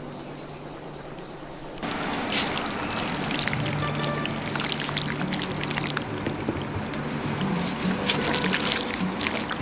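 Liquid pouring, starting suddenly about two seconds in and running on with a crackly trickle, over background music.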